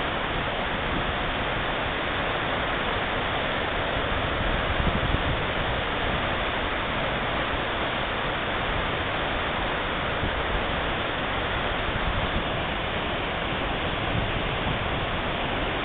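Roaring River Falls, a waterfall, giving a steady, even rush of falling water.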